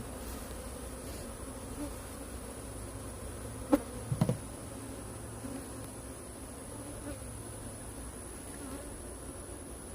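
Honeybees buzzing steadily around opened hive frames, a low humming drone. Just under halfway through come a few sharp knocks.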